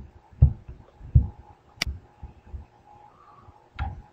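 A single sharp click of a computer mouse button, with a few soft, low thumps before and after it.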